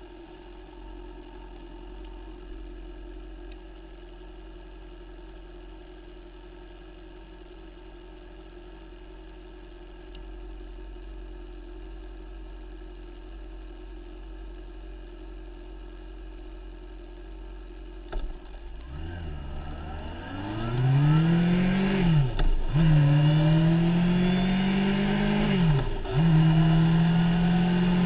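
Motorcycle engine idling steadily, then pulling away and accelerating: the engine pitch rises, drops sharply at two gear changes and settles into a steady run.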